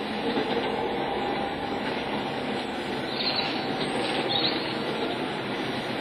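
Model railway train running on the layout: a steady mechanical hum and rattle, with two brief high squeals about three and four and a half seconds in.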